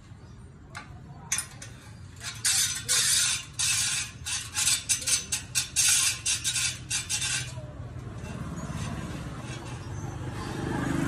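Spoked motorcycle wheel spinning in a truing stand, its rim scraping against a flat steel gauge bar held beside it in a run of short metallic rasps, about two a second, marking where the rim runs out of true. The rasps stop about two thirds of the way through, and a low rumble builds near the end.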